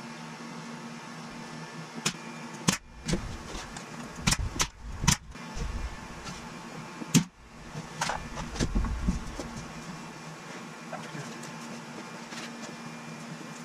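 About six sharp clicks and knocks from a pneumatic nail gun and its air hose being handled and coupled, with low rumbling handling noise between them, over a steady low hum.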